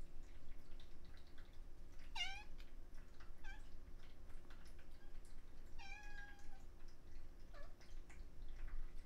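A cat meowing four times: a short meow about two seconds in, a brief one soon after, a longer held meow around six seconds, and a short one near the end.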